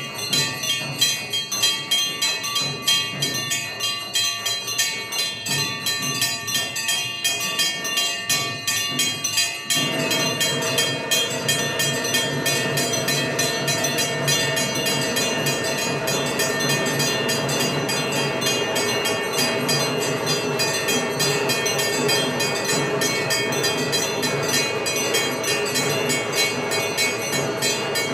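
Temple ritual instruments during the puja: bells ringing with rapid, pulsing strokes. About ten seconds in, a louder sustained drone of several held pitches joins them suddenly and carries on steadily.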